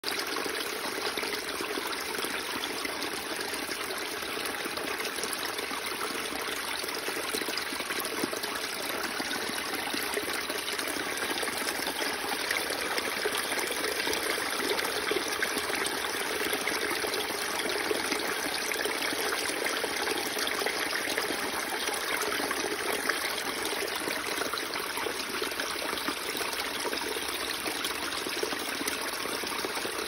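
Spring water running off moss in thin streams and splashing onto wet stones in a shallow pool, a steady trickling and splashing.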